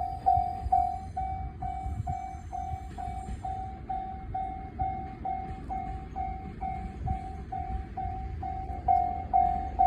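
Japanese railway level-crossing warning bell ringing, a steady run of identical electronic dings at a little over two a second, which signals that a train is approaching.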